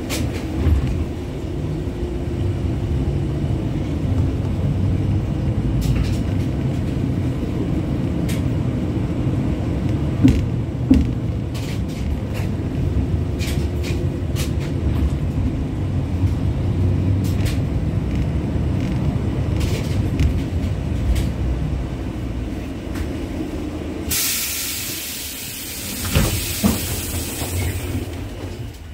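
LVS-86K tram heard from inside the passenger saloon, running with a steady low rumble of motors and wheels on the rails and scattered clicks and knocks, then coming to a stop at the terminus. About four seconds of loud hiss follows near the end.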